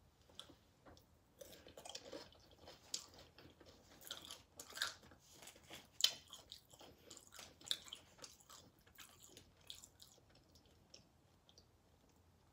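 A person chewing loaded tortilla-chip nachos in close-up: irregular crisp crunches and wet chewing, with the sharpest crunch about six seconds in, thinning out near the end.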